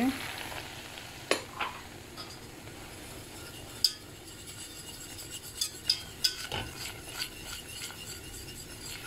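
Wire whisk stirring flour into melted butter and olive oil in a stainless steel pot to make a roux for béchamel sauce, with a faint sizzle and scattered clinks of the whisk against the pot, most of them after about five seconds.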